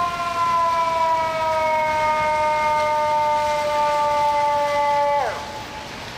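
Fire truck air horn held in one long blast, a two-note chord whose pitch sags slowly, then drops and cuts off about five seconds in, leaving street traffic noise.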